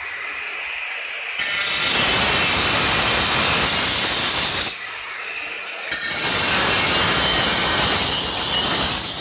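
Electric angle grinder cutting into a ceramic floor tile. The motor runs with a lighter whine at first, then the loud cutting noise starts a little over a second in, breaks off for about a second near the middle, and resumes until the end.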